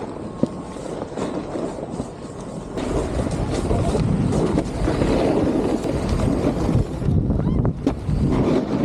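Snowboard sliding and carving over soft snow, a steady rough scraping hiss that grows louder about three seconds in, mixed with wind rushing over the microphone.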